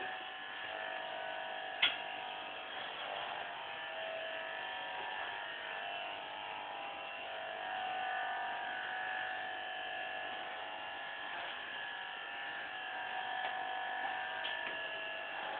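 Electric hair clipper buzzing steadily as it cuts short hair, its pitch wavering slightly as it meets the hair, with a single click nearly two seconds in.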